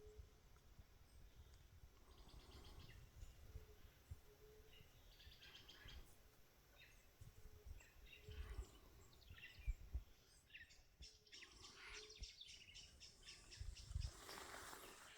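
Quiet forest ambience: faint, scattered bird chirps, with occasional soft low thuds of footsteps.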